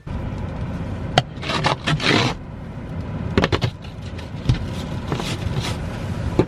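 Scraping strokes of ice being cleared from a car covered in ice, several strokes of differing length over a steady low rumble.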